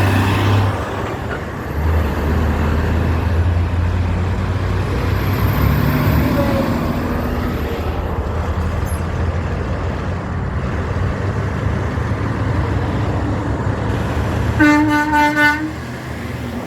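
Heavy trucks passing with a steady low diesel engine rumble, and a truck air horn blowing once for about a second near the end.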